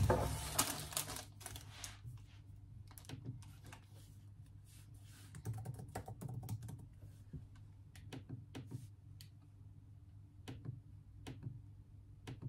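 Plastic grocery packaging crinkling for the first couple of seconds, then typing on a tablet's detachable keyboard cover: irregular key clicks in short runs.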